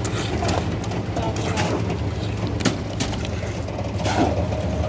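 Construction-site noise: a steady low machine hum with scattered knocks and clicks.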